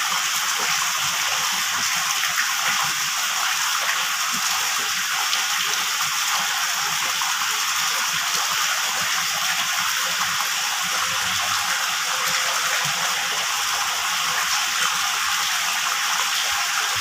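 A jet of water pouring into a fish tank, splashing steadily onto the surface.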